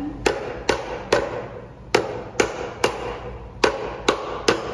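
Wooden mallet striking a pewter disc on a wooden block, beating it into a dish: nine sharp knocks in three quick groups of three, each with a short ring, the disc turned between groups.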